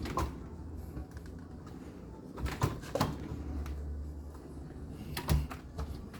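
Kitchen cabinet drawers with Blum fittings being pushed open and shut: a few sharp knocks and clicks, with a low rumble of the runners in between.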